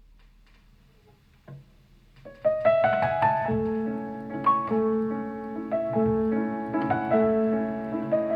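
Piano music played through Tang Band 1320SIF 4-inch full-range speakers. After a quiet pause with a faint click, the piano starts about two seconds in.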